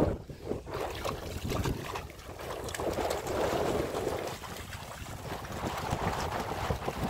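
Wind noise on the microphone over water sloshing and splashing as puppies wade through a shallow river.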